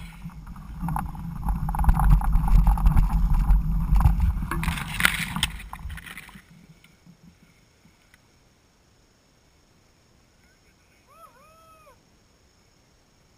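Low rumble with rattles and knocks from a mountain bike ridden over a rough trail, with wind on the action camera's microphone. It dies away about six seconds in to near quiet, and a short faint arching call follows near the end.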